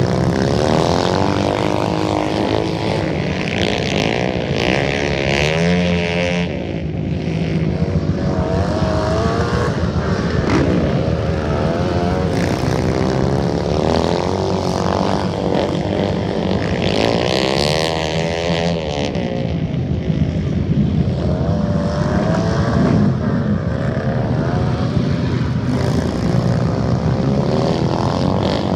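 Several small racing engines running at once, their pitch rising and falling over and over as they accelerate and back off.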